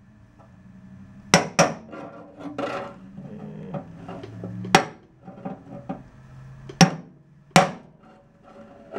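Hammer striking a bar held against the sheet-metal flange of a VW bus battery tray, tapping the seam up flush to close an eighth-inch gap. There are five sharp metallic strikes at irregular spacing, two close together about a second and a half in and two more near the end, with lighter clinks and scraping between.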